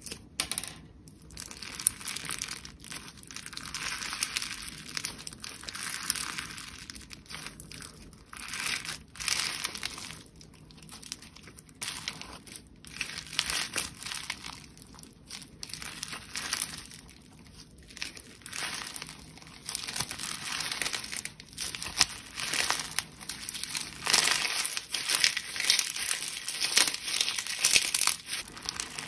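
Hands squeezing, stretching and folding a green slime packed with star-shaped glitter and sequins, giving a crinkly, crackling squish that swells and fades every second or two.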